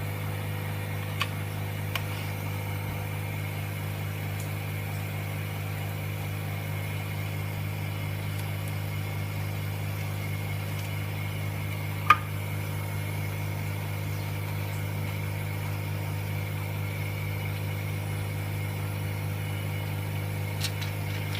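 Vacuum pump on an LCD film-laminating machine running with a steady low hum, with a couple of light clicks early on and one sharp click about halfway through.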